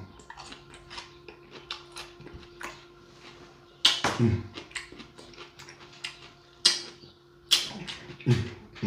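Close-miked eating sounds: wet chewing and lip smacking in quick clicks, with a few louder smacks or slurps from about four seconds in.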